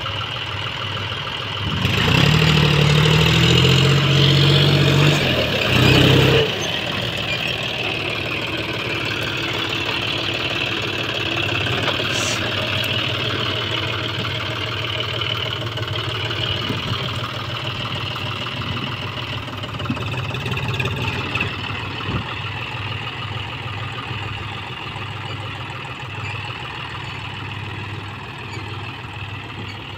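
John Deere 5105 tractor's three-cylinder diesel engine working as it pulls a trailer up a dirt ramp: it revs up loudly for a few seconds near the start, then runs steadily and grows quieter as the tractor moves away.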